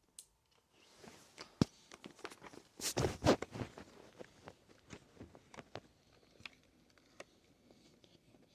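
Handling noise: a scattered run of clicks, taps and rustles, busiest and loudest about three seconds in, then thinning out.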